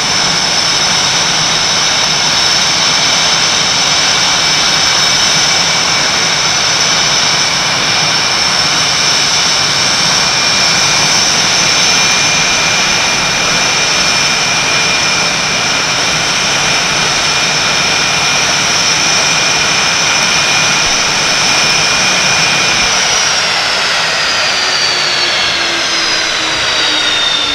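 Several F/A-18 Hornets' twin General Electric F404 jet engines idling on the ground, a steady high whine over a rushing roar. About 23 seconds in, the whine begins to fall in pitch as the engines spool down at shutdown.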